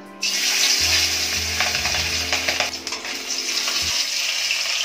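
Hilsa fish pieces coated in turmeric and salt sizzling as they fry in hot mustard oil in a kadhai. The sizzle starts suddenly, about a quarter second in, as the fish goes into the oil, and stays loud and steady.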